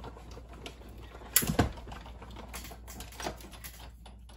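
Manual die-cutting and embossing machine in use: scattered clicks and knocks of its plates and handle, with one louder knock about one and a half seconds in.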